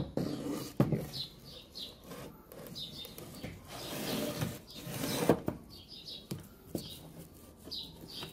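Wooden jig pieces handled on a workbench: a couple of sharp wooden knocks near the start, then wood scraping as a piece slides about four seconds in. Small birds chirp repeatedly in the background.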